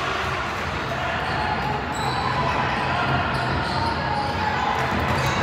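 Steady gymnasium hubbub during a game: many overlapping voices echoing in a large hall, with no clear repeating beat of ball impacts.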